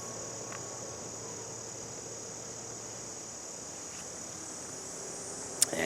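Steady high-pitched chorus of crickets.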